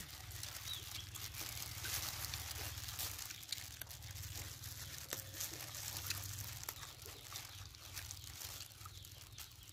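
Disposable plastic gloves crinkling as hands pick up and wrap leaves and food, with scattered small crackles and crunches, over a low steady hum.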